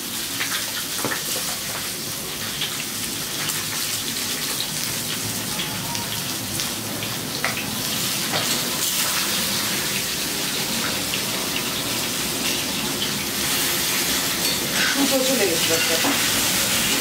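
Cut vegetables (potato, papaya and others) sizzling steadily in hot oil in a metal kadai on a gas stove, with a metal spatula stirring and scraping against the pan now and then. This is the spiced dry-frying stage, before water is added for the jhol.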